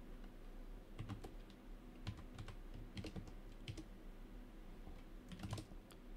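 Faint keystrokes on a computer keyboard, a scattering of separate clicks at an irregular pace, with a quicker cluster near the end.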